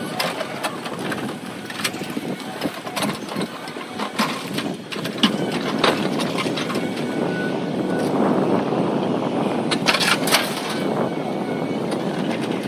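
Caterpillar hydraulic excavator running as its bucket tears into a wooden building, with repeated cracks and snaps of breaking timber and debris. The noise grows denser and louder a little past the middle.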